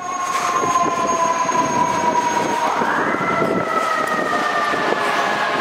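Fire engine siren winding: its pitch sinks slowly, rises sharply about halfway through, then sinks slowly again, over steady street noise.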